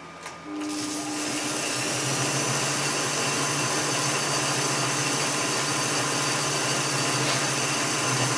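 A click, then the braked DC motor of a 1950s Mars lathe starts and the spindle runs up to speed over about a second, settling into a steady running hum with gear whine at around 300 rpm. It is a thread-cutting pass, with the saddle feeding the tool along the work.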